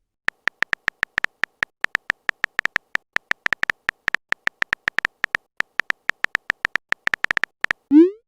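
Phone keyboard typing sound effect: rapid, irregular short ticks with a high tone, like a message being typed key by key. Near the end a short rising whoosh, like a message-sent sound.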